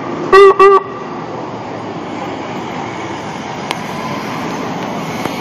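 Two short, loud horn blasts from an emergency vehicle in the first second, then steady city traffic noise as the ambulance drives past.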